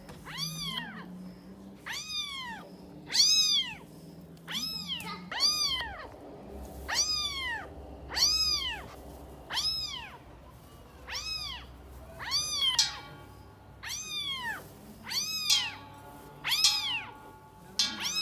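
A cat meowing over and over, high-pitched meows each rising then falling in pitch, repeated about once a second at a very even pace.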